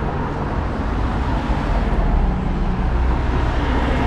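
Road traffic noise: a steady rumble of passing cars, swelling a little around the middle.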